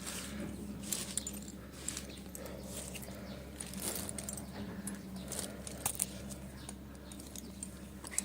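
Light, irregular clinks and rustles, like small metal gear being handled, over a steady low hum.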